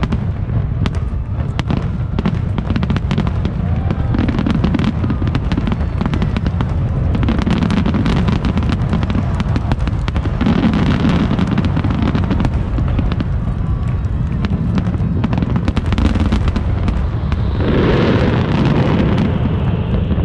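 Aerial fireworks display: a continuous barrage of shell bursts and dense crackling over a heavy low rumble, with a louder surge of bursts near the end.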